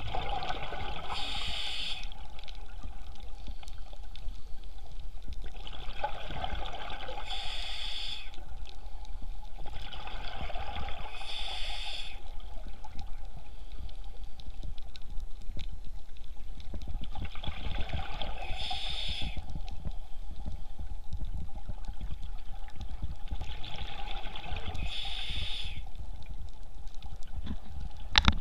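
A scuba diver breathing through a regulator underwater: five breaths, each a hiss followed by a short burst of bubbling, a few seconds apart, over a steady low underwater rumble.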